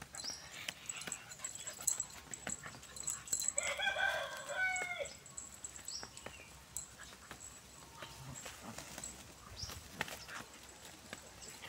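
A rooster crows once, about a second and a half long, starting about three and a half seconds in. Around it are scattered short clicks and scuffles from a dog play-fighting with geese.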